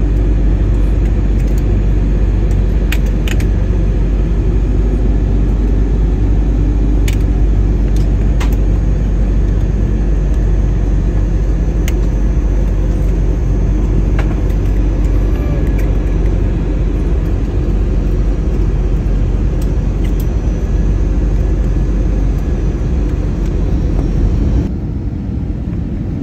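Airliner cabin noise in flight: a steady, loud low rumble of the engines and the air rushing past the fuselage, with a few faint clicks. It drops a little in level near the end.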